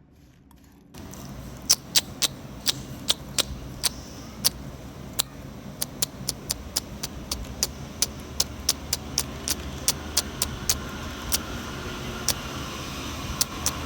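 Magic pops going off in an irregular run of sharp little pops and crackles, about two or three a second, over a steady hiss. The loudest pops come in the first few seconds.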